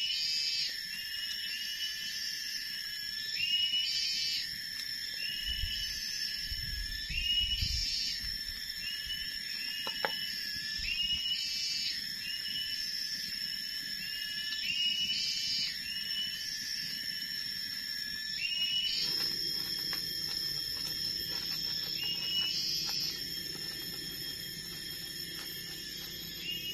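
Forest wildlife calling: a steady high-pitched drone with a short chirping call repeated about every second or second and a half.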